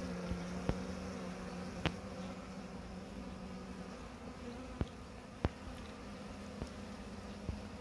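Honeybees buzzing at a hive entrance. One flies close with a steady hum that fades about halfway through, and a few sharp clicks are scattered through it.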